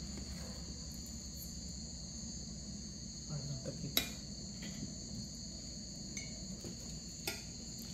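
Crickets chirring steadily, a constant high-pitched trill in two bands, with a single sharp click about four seconds in and a few faint handling sounds at the table.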